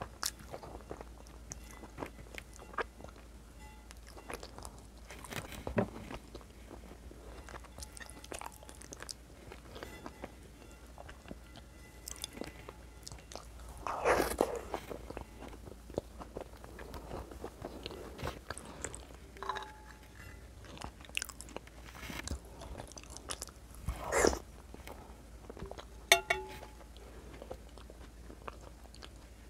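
Close-miked chewing of white beans and meat in red sauce scooped up with bread, with scattered small clicks and smacks of the mouth. Two louder mouthfuls stand out, about halfway through and again some ten seconds later.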